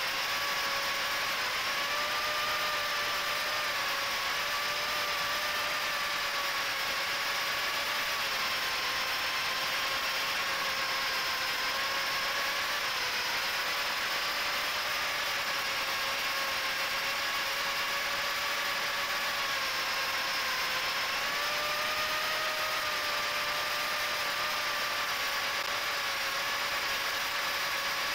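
Micro FPV quadcopter's HGLRC 1104 7500kv brushless motors spinning Gemfan 3018 props, heard from the onboard camera: a steady whine that wavers slightly in pitch with throttle, over a hiss of propwash and air.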